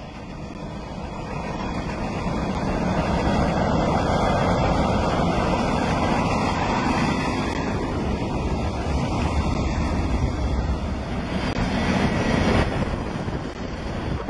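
Freight train of hopper cars rolling past close by: the steady rumble and rattle of steel wheels on rail, growing louder over the first few seconds and then holding.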